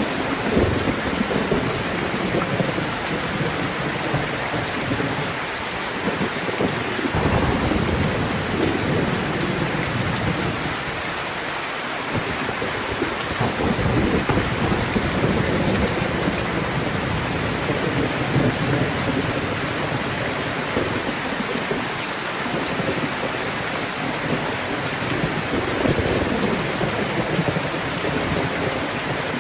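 Steady rain falling, with low thunder rumbles swelling and fading several times.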